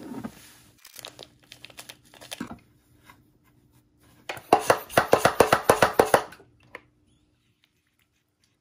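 Trigger spray bottle squirting water onto the substrate of a small acrylic tarantula enclosure, a quick run of about a dozen squirts lasting about two seconds, starting a little over four seconds in. Before that come soft rustling and crackling of loose substrate and moss being poured and mixed by hand.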